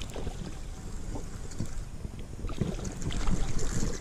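Wind rumbling on the microphone, with scattered light knocks and rustles of someone moving in a plastic kayak; the knocks and rustles grow louder over the last second and a half.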